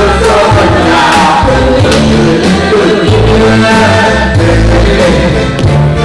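Loud song playing, with a singing voice over a steady bass line.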